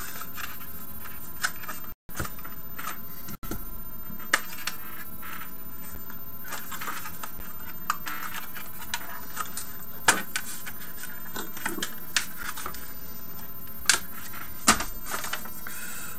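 Irregular light clicks and taps of a plastic phone case being handled and fitted onto a phone, with a few sharper snaps about ten seconds in and near the end, over a steady hiss.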